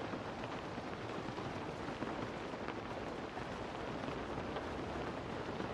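Steady rain falling on a car, heard from inside the cabin, with a few faint drops tapping here and there.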